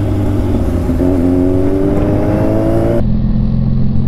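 Kawasaki Z1000's inline-four engine pulling through a gear, its note rising steadily under acceleration, over a steady low rumble. About three seconds in the sound turns suddenly duller and holds a steady note.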